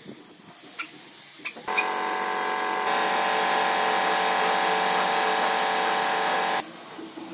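Compressed-air paint spray gun spraying: a steady hiss with a humming tone, starting a couple of seconds in, getting louder about a second later and cutting off suddenly near the end as the trigger is released.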